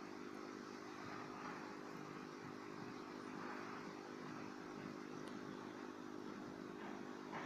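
Aquarium air pump running with a steady low hum, over a soft hiss of air bubbling up through the tank water.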